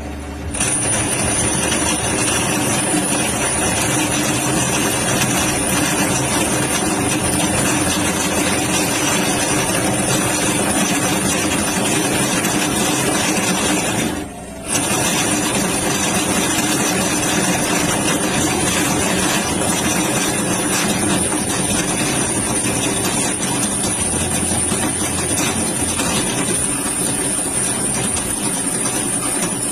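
Machinery running steadily with a hiss and a constant high whine. It cuts out briefly about halfway through, then starts again.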